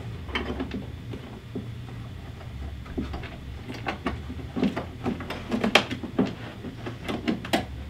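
Clicks and knocks of a hard saddlebag being fitted onto a Harley-Davidson Electra Glide's rear bag mounts: a scatter of sharp taps that come thicker in the second half, over a low steady hum.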